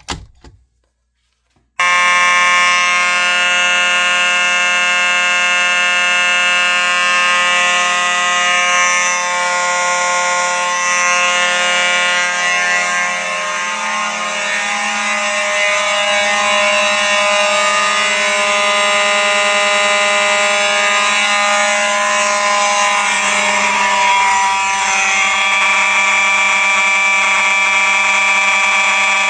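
Four Simplex mechanical fire alarm horns (two 9215s, a 9217 and a 9202) start together about two seconds in and sound continuously. It is a loud, steady buzzing blare of several out-of-tune pitches, and the blend shifts a little near the middle.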